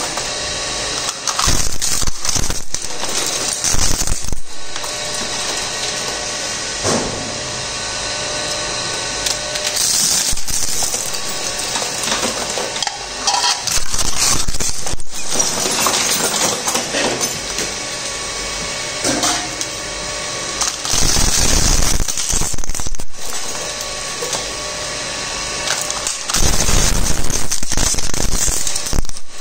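DS4007 twin-shaft e-waste shredder running, its toothed cutter discs crunching and cracking electronic scrap and metal. Irregular loud crunches and clatter ride over the steady drone of the machine, heaviest about two-thirds of the way in and again near the end.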